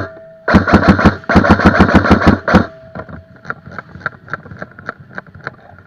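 Airsoft gun firing on full auto: a short burst, then a longer burst of about ten shots a second, followed by fainter, slower shots for a few seconds.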